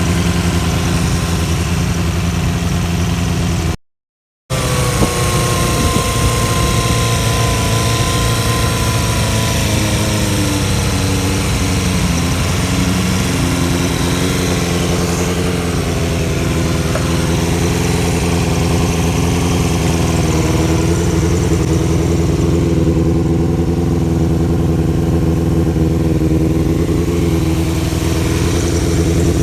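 Suzuki Bandit 250 V inline-four engine, swapped into a Choinori scooter and fitted with a replacement silencer, running steadily. The sound drops out for about half a second near four seconds in, then the engine keeps running with small shifts in its note.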